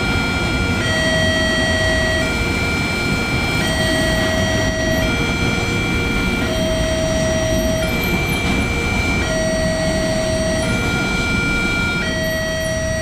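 Level-crossing warning alarm sounding, switching between two tones about every one and a half seconds. Under it is the steady rumble of a container freight train passing over the crossing.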